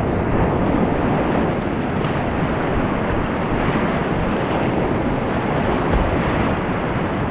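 Whitewater rapids of an alpine river rushing, a steady loud noise with no pauses.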